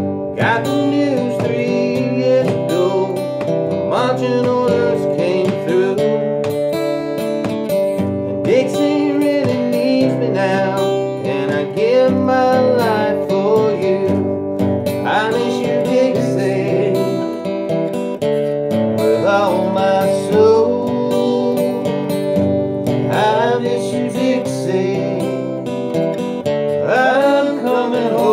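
Two acoustic guitars playing together, strummed and picked, as accompaniment to a song.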